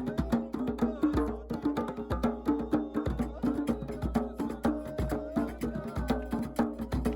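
Rhythmic music: fast percussion strikes, several a second, over a repeating melody and a steady low bass.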